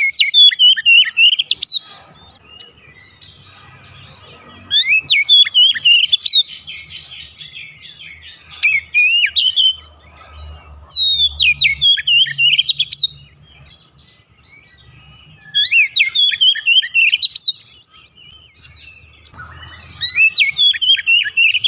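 Male Oriental magpie-robin (kacer) in full song: about six loud phrases of rapid, gliding whistled notes, each a second or two long, with short pauses between them.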